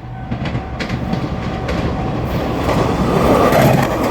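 JR Shikoku 2700 series limited express diesel railcar drawing near, its engine rumble and rail noise growing steadily louder, with a scatter of sharp wheel clicks.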